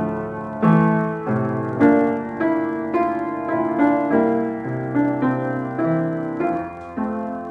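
Out-of-tune upright pub piano played in chords and melody, a new note or chord struck roughly twice a second, each ringing on.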